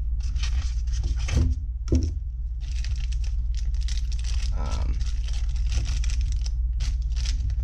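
Handling noise from unboxing: a recorder set down into a styrofoam packaging tray with two knocks, about one and a half and two seconds in, then scraping against the foam and plastic bags crinkling. A steady low hum runs underneath.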